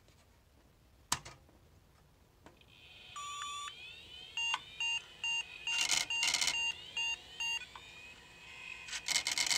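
A click about a second in as the 486 PC is powered on, then its POST beeps: one longer beep followed by a run of short beeps, about three a second, over a rising whine as the old hard drives spin up. Near the end the hard drives let out a loud, harsh rattling noise, horrible enough that the owner afterwards unplugs them so they don't shake themselves to death.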